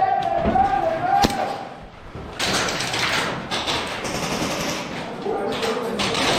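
Indoor airsoft game ambience: players' voices calling out, with one sharp crack of an airsoft gun about a second in.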